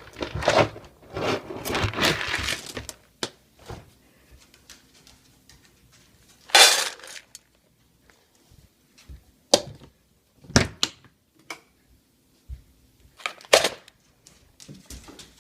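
Dry dog food clattering in a food bowl: a dense rattle over the first three seconds, then a handful of separate clinks and knocks a few seconds apart.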